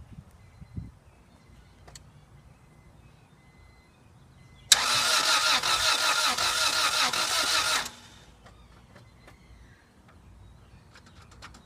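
1997 Acura Integra GSR's four-cylinder engine cranked by its starter for about three seconds, turning over in an even rhythm without catching, then the cranking stops. This is a no-start despite new spark plugs and plug wires.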